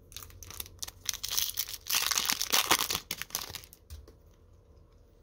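A Topps sticker pack's wrapper being torn open and crinkled, a crackling rustle that is loudest about two seconds in and fades out before the end.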